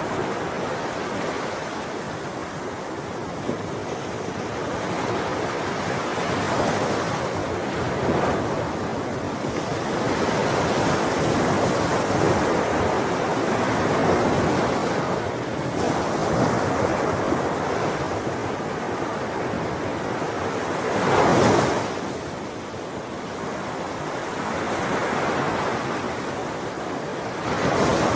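Ocean waves breaking and washing on the shore in a continuous rush that swells and recedes, with a louder wave crashing about two thirds of the way through and another near the end. Some wind.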